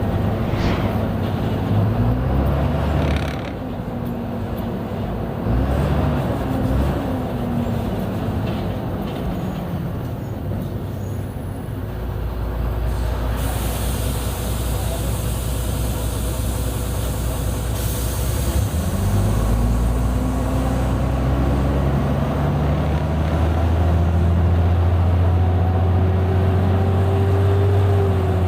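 Mercedes-Benz O-500U city bus diesel engine under way with its Voith automatic transmission. The engine note rises and falls several times early on as the bus accelerates and shifts, then drones steadily. A hiss of compressed air comes in about halfway, and the engine climbs gradually again near the end.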